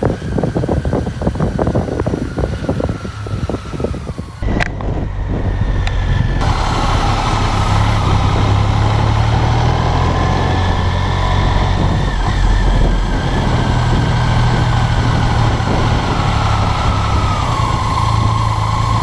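BMW K75 motorcycle's three-cylinder engine running at low speed through town streets. Rough wind buffeting on the microphone in the first four seconds. The sound changes abruptly about four and six seconds in, then settles into a steady engine hum.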